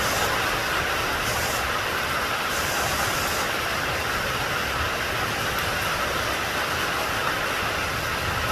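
Steady rain falling, an even hiss of rain noise, with a few brief brighter swells of high hiss in the first few seconds.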